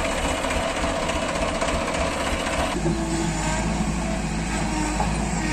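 Massey Ferguson 7250 DI tractor's diesel engine running close by. After a cut a little past halfway, a JCB 3DX backhoe loader's diesel engine runs steadily as it works its loaded bucket.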